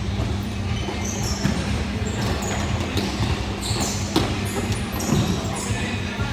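Sound of a junior football match with nobody speaking near the camera: a steady low rumble and hum, short high calls in the distance, and a few sharp thumps, the loudest about four seconds in.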